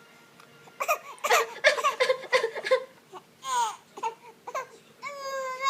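A baby girl putting on a fake cry. It starts as a quick run of short, choppy sobs, then comes a high falling wail, and near the end a long drawn-out cry.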